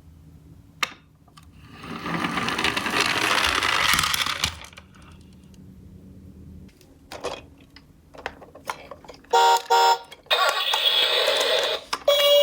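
Toy ambulance minicar: clicks as it is handled, then a couple of seconds of rolling clatter as it runs down the slope. Near the end its electronic sound unit gives two short beeps and then bursts into a siren tone.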